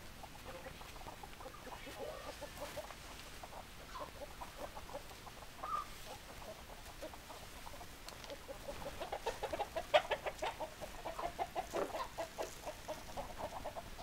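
A flock of chickens clucking, many short clucks overlapping. The clucking grows busier and louder after about the middle.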